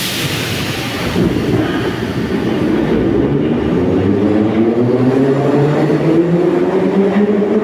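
Soviet metro train with 81-714.5M cars setting off from the station. A sharp hiss at the start fades over a couple of seconds, then the traction motors' whine climbs steadily in pitch as the train accelerates.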